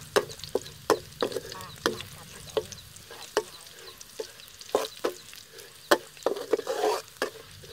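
Metal spatula scraping and clinking against a steel wok, irregular strokes about twice a second, as chopped garlic fries in oil with a faint sizzle underneath.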